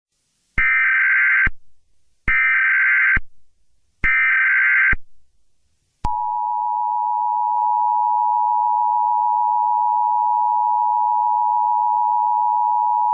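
Emergency Alert System opening: three short bursts of SAME header data tones, each under a second with a pause between, then about six seconds in the steady two-tone EAS attention signal comes on and holds. The sequence announces an emergency broadcast, here an Amber child abduction alert.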